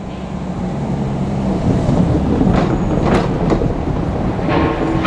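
JR Kyushu 787 series electric train running along the track, wheels clacking over the rail joints, with a few sharp clacks about halfway through.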